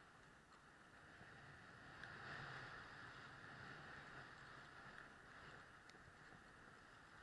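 Faint, steady hiss of skis sliding over packed snow, swelling briefly about two seconds in.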